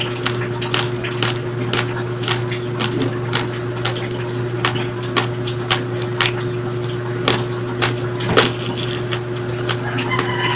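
Close-miked chewing of uncooked white rice with peanut butter: irregular sharp crunches, a few a second, as the hard dry grains crack between the teeth.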